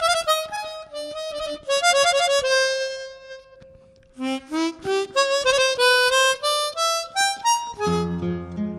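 Background music: a solo melody played on a wind instrument, note by note. It fades out briefly around the middle, then resumes, and lower accompanying notes come in near the end.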